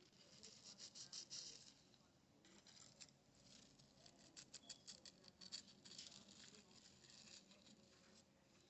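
Faint, crisp rustling and crackling of a flower bouquet as fingers work among the hydrangea petals and statice sprigs, in irregular bursts of quick small crackles.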